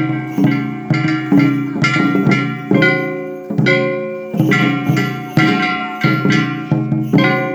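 Kagawa shishimai (lion dance) accompaniment: a drum and a ringing metal gong struck in a steady rhythm, about two strikes a second, each hit ringing on until the next.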